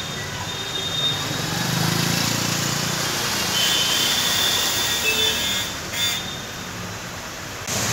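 A car driving past close by on a waterlogged street, its engine hum swelling and then fading over a steady hiss of street noise.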